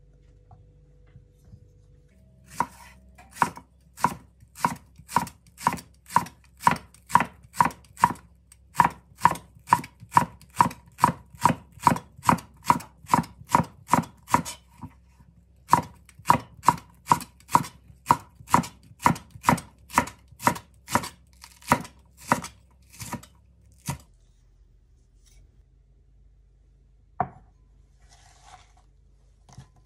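Kitchen knife slicing a Japanese long green onion (naganegi) on a wooden end-grain cutting board: a steady run of sharp knife strikes against the board, about two a second, with one short pause midway. The strikes stop a few seconds before the end and are followed by a single knock.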